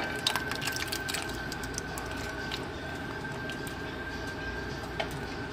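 Canned pinto beans and their liquid poured from a metal can into a glass pot, with clinks and wet splats mostly in the first second or so. Under it runs a steady hum with a faint high whine.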